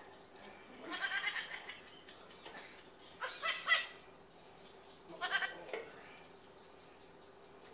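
A high-pitched voice in three short bursts, about two seconds apart, over a faint steady hum.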